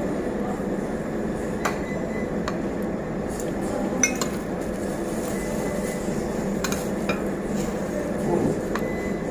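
Cutlery and plates clinking at a dining table, about seven separate sharp clinks, the loudest about four seconds in, over the steady background hum of a busy restaurant.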